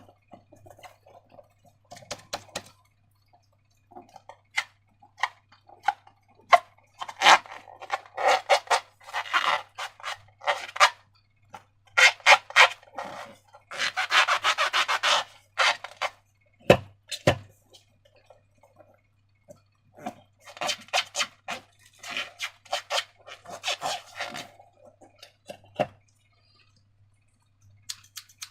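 Slime being squished and worked by hand: sticky crackling with many small pops and clicks, in spells of a few seconds separated by short pauses.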